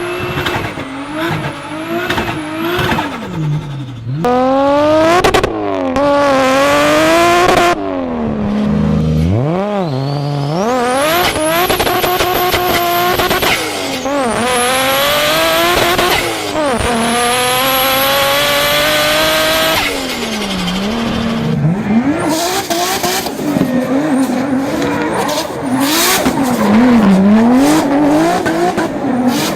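A run of short clips of turbocharged car engines revving up and dropping off, with a high rising turbo whistle as they spool and turbo flutter (compressor surge chatter) when the throttle is lifted. The sound changes abruptly every few seconds from one car to the next.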